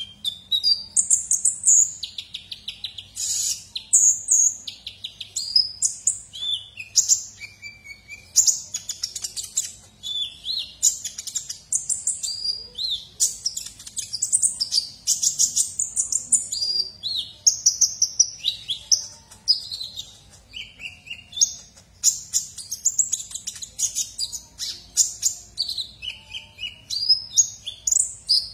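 Caged male purple-throated sunbird (the 'kolibri ninja' of Indonesian bird keepers) singing without letup: a fast, high twittering of short chirps, trills and quick up-and-down notes, broken only by brief pauses.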